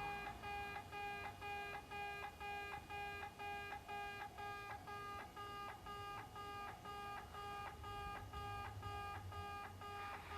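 Japanese railway level crossing's electronic warning sounder going 'pe-pe', a two-tone beep repeating steadily at nearly three beats a second. A faint low rumble comes up near the end.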